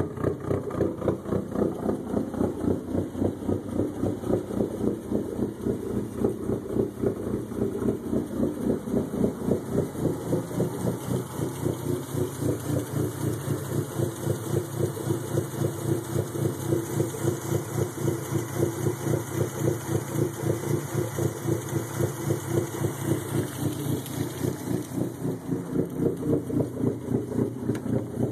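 Dodge SRT-4's turbocharged 2.4-litre twin-cam four-cylinder idling with a steady, rhythmic pulse, the choppy idle of its Crower stage 2 camshafts.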